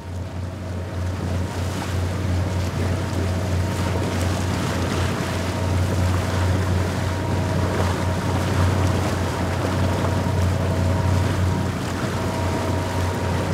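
Outboard motor of a small boat running steadily at speed, a low hum with a few steady higher tones, over the rush of the wake and wind buffeting the microphone. The sound fades in over the first second or two.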